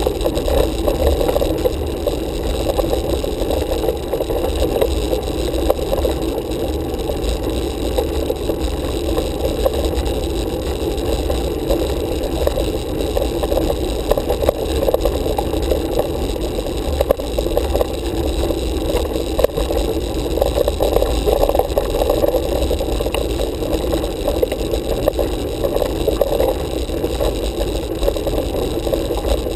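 Steady muffled rumble of a road bike riding on asphalt, heard from a handlebar-mounted camera: tyre and wind noise on the microphone, with a couple of brief knocks past the middle.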